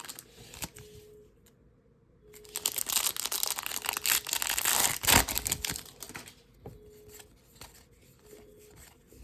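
A trading-card pack's foil wrapper being torn open and crinkled by hand: a few light clicks, then a dense crackling tear a couple of seconds in that lasts about three to four seconds.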